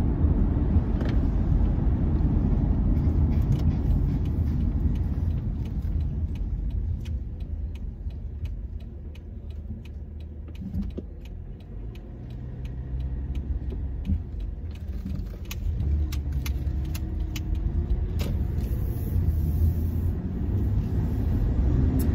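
Road and engine rumble of a moving car heard from inside the cabin, dropping quieter for a few seconds in the middle and then building again, with faint light clicks while it is quieter.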